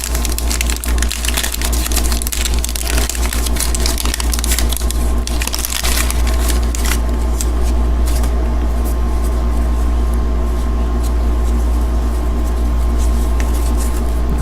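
Wax-paper wrapper of a baseball card pack being torn open and crinkled, a dense crackling that lasts about seven seconds and then thins out. A steady low hum runs underneath.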